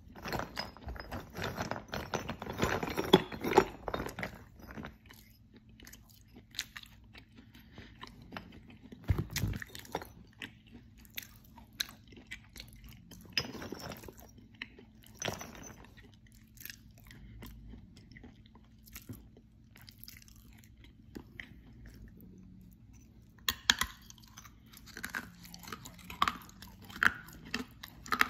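Close-up mouth sounds of a person chewing and crunching edible clay chalk. Dense crunching for the first few seconds gives way to sparser clicks and smacks, and a fresh run of crunching starts about 23 seconds in.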